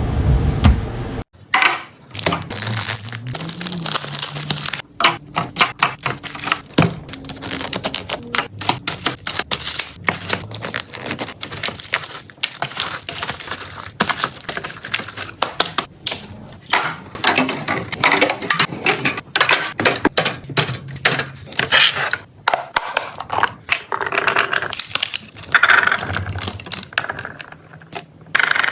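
A low rumbling noise cuts off about a second in. Then comes a long run of irregular clicks, taps and rustles, as plastic food packaging and containers are handled and set down.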